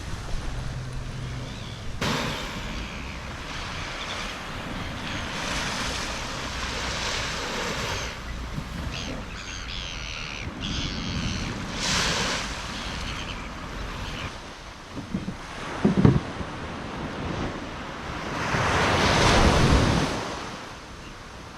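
Waves washing in, with wind buffeting the microphone; one wave surges loudest near the end. A few sharp knocks come about two-thirds of the way in.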